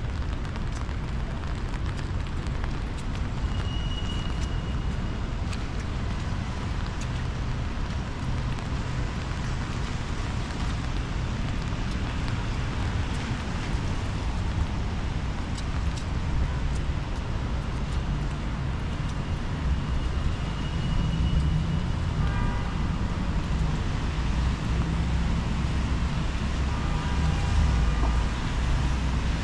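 Steady low rumble of city traffic, with a few brief faint pitched sounds in the second half.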